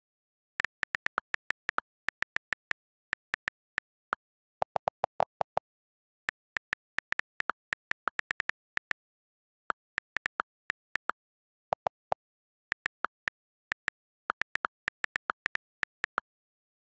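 iPad on-screen keyboard key clicks as text is typed: irregular runs of short, sharp clicks, several a second, with short pauses between words. Two runs, about five seconds in and near twelve seconds, are lower-pitched clicks.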